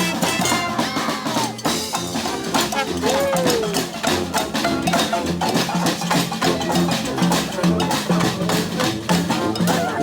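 A street brass band playing with drums and percussion: horns over a low bass line of short repeated notes and a steady, busy beat. One horn note slides up and back down about three seconds in.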